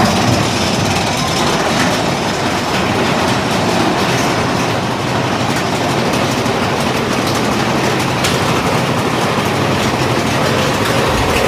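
Big Thunder Mountain Railroad mine-train roller coaster cars running along the track with a steady, even rattling rumble.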